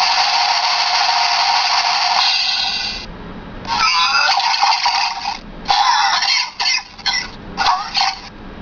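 Handheld electronic sound-effects machine playing its built-in effects through its tiny speaker. The sound is thin, with no low end. One effect runs until about three seconds in, another follows after a brief pause, and a string of short, chopped-off bursts comes near the end.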